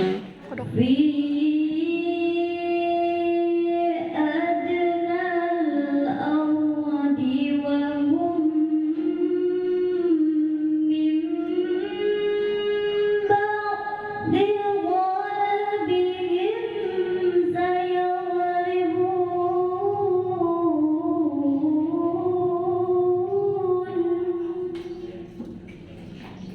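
A young girl's voice reciting the Quran in the melodic tilawah style, drawn-out phrases with ornamented turns held at a fairly steady pitch. The recitation stops about a second before the end.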